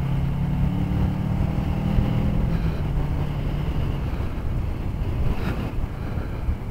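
Motorcycle engine running steadily at road speed over wind and road noise, its note easing lower about two to three seconds in. A short burst of noise comes about five seconds in.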